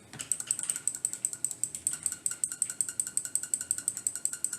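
Left button of an Attack Shark X6 wireless gaming mouse clicked rapidly and evenly, several clicks a second. It squeaks on every press, a fault of this mouse's left button that shows when the mouse rests on the desk.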